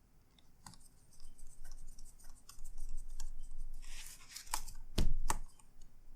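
Laptop parts being handled during reassembly: scattered light clicks, a short scrape about four seconds in, then two sharp knocks in quick succession about five seconds in.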